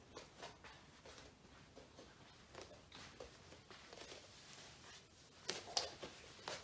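Scattered light clicks and taps from handling a desktop computer and its plug-in cables, with a louder cluster of clicks about five and a half seconds in.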